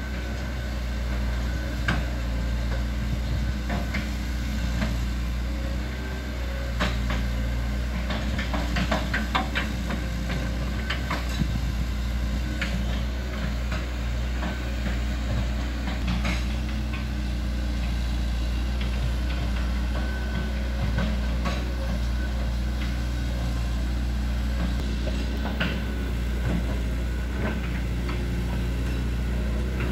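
Hitachi ZX110MF excavator's diesel engine running steadily while the machine travels on its tracks, with irregular clanks and knocks from the steel tracks, thickest about a third of the way in.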